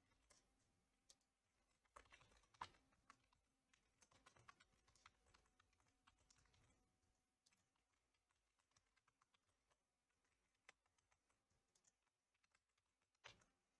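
Faint computer keyboard typing in quick bursts over the first half, thinning to scattered single clicks, with one sharper click near the end.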